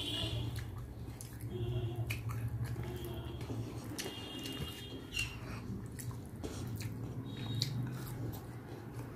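Wet eating sounds: fingers squelching and mixing rice and dal on a banana-leaf plate, with small clicks, then a mouthful being chewed near the end. A steady low hum runs underneath, and a few short high chirps come and go.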